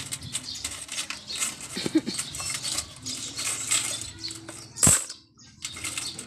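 Coins clinking and rattling as a hand gathers them out of a coin machine's box into a plastic basin, with one sharp clack about five seconds in.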